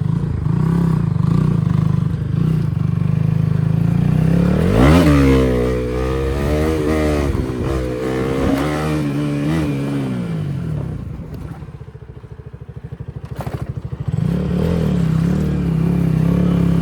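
Motorcycle engine running, then revved sharply about four to five seconds in and held high with the pitch wavering for several seconds before dropping back. It goes quieter for a moment, there is a single sharp click, and then it runs steadily again near the end.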